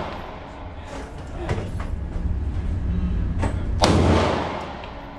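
A single handgun shot a little under four seconds in, with a long echo in an indoor range, over a steady low rumble. Fainter knocks come earlier.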